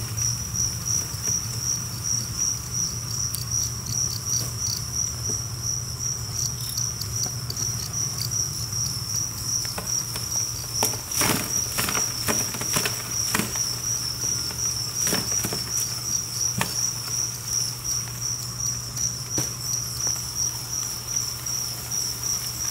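A mass of two-spotted crickets chirping together in a continuous high, pulsing trill. From about halfway through, a run of sharp clicks and scraping comes from cardboard egg-carton pieces being handled among them.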